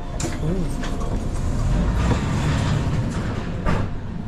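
Inside a Russian electric commuter train car: a steady low rumble from the train, with a few clicks and knocks, the sharpest near the end.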